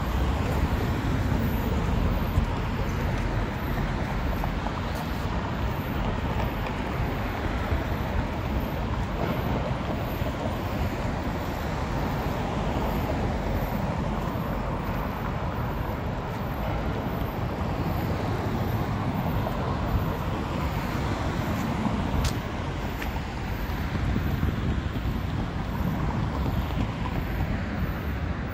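Steady city street traffic noise: cars and other vehicles passing in a continuous rushing hum.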